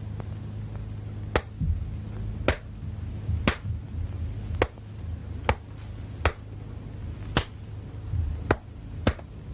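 Sharp slaps of hands and forearms meeting in a Wing Chun hand-exchange drill, about nine of them at roughly one a second. A steady low hum from the old film soundtrack runs underneath.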